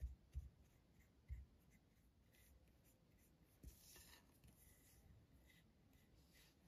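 Faint scraping of a silicone spatula pressing crumbly shortbread dough against a glass bowl. Three soft low thumps come in the first second and a half, and another about three and a half seconds in.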